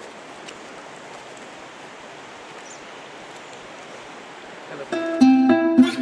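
Steady rush of flowing river water at a small check dam. About five seconds in, louder plucked acoustic-guitar background music comes in and takes over.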